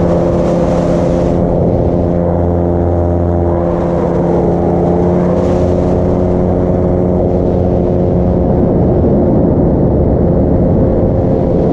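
Paramotor engine running steadily under power, a continuous drone.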